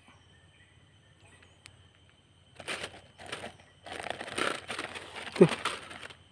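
Rustling handling noise in uneven bursts through the second half, as the angler moves with the rod close to the phone, with one short falling sound near the end.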